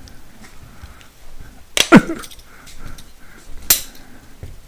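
Sharp metallic snaps, two close together about two seconds in and one more near the end, from the spring clips of a Powerspark distributor's cap being unclipped. Faint handling noises run between them.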